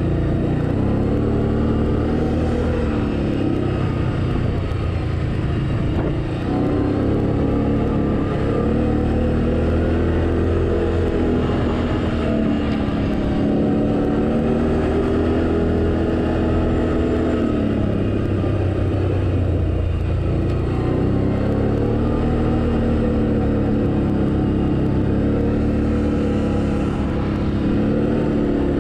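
Can-Am Outlander ATV engine running while under way. Its pitch dips and climbs again several times as the throttle eases off and comes back on.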